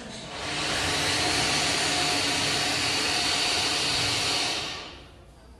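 Steady whirring, blowing noise of a small motorised appliance, like a hair dryer or vacuum cleaner, starting about half a second in, running evenly for about four seconds and fading out near the end.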